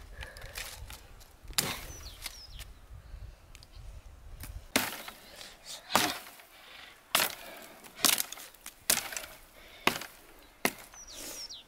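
A small axe chopping a tree branch: about eight sharp wooden strikes, one early and then a run roughly a second apart through the second half.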